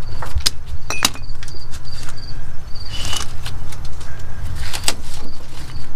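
Scattered clicks and knocks of hands and tools working on the exhaust parts under a pickup truck, over a steady low rumble, with short high bird chirps repeating now and then.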